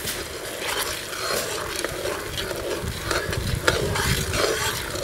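Perforated steel skimmer stirring hot sugar syrup in a metal wok, with repeated scraping strokes against the pan over the bubbling of the syrup. The sugar is melting and the syrup is close to the boil as yellow food colour is mixed in.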